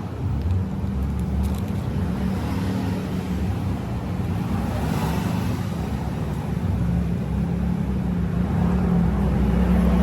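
Steady motor-vehicle engine and road-traffic rumble, with a brief swell about five seconds in, like a vehicle passing.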